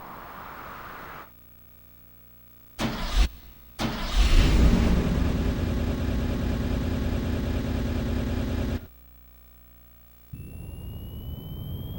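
Karaoke machine sound effect of a car engine starting: two short cranking bursts, then the engine catches and runs steadily for about five seconds before cutting off abruptly. Near the end a new effect begins, a hiss with rising tones.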